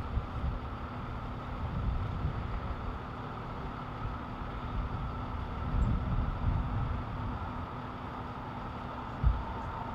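Steady hum of idling vehicle engines, with an uneven low rumble underneath and one sharp thump near the end.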